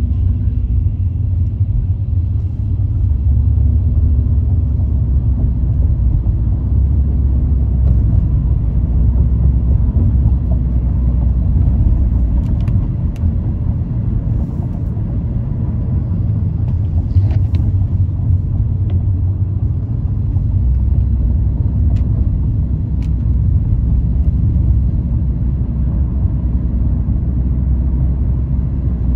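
Car driving on city roads: a steady, loud low rumble of road and engine noise, with a few faint clicks midway.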